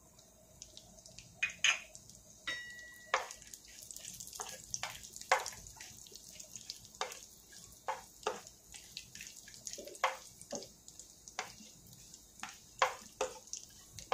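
Almonds and cashews frying in ghee in a pan: irregular crackles and clicks, one or two a second, over a faint sizzle.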